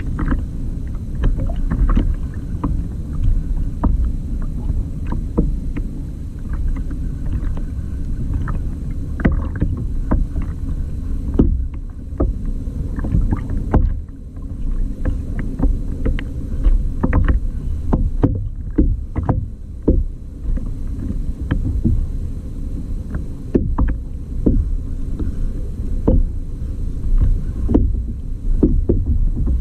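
Water slapping and splashing against a kayak's hull in frequent short knocks, over a steady low rumble of moving water.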